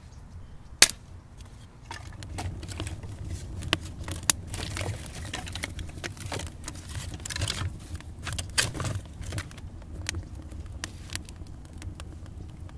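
Wood fire crackling and popping inside an adobe hearth, with burning sticks clattering and scraping as they are shifted with stick tongs. One loud sharp snap about a second in.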